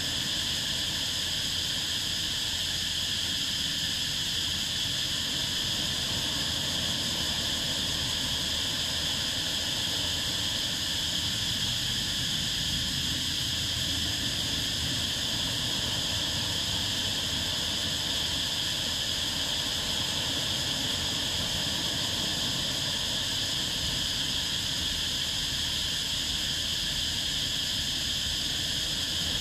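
Steady shoreline ambience: a constant high-pitched insect chorus over a low, even rumble of surf and wind.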